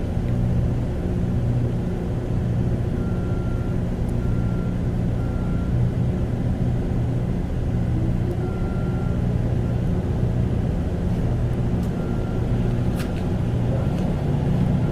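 A motor vehicle's engine running at a steady pace, an even low drone, with a few brief faint high tones over it.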